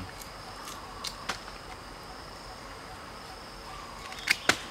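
Steady high-pitched drone of insects such as crickets, with a few faint clicks about a second in and two sharp clicks near the end.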